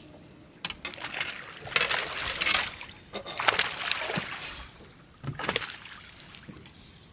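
Water sloshing and splashing against the hull of a fishing boat, in four bursts of a second or less.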